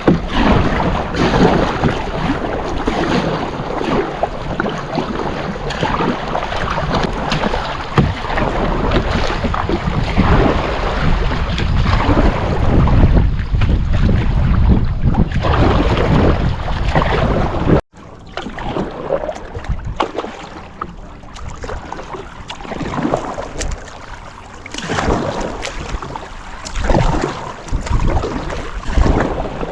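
Kayak paddling on a lake: water splashing with each paddle stroke, and wind buffeting the microphone with a heavy rumble. An abrupt cut about two-thirds of the way through leaves the splashing a little quieter.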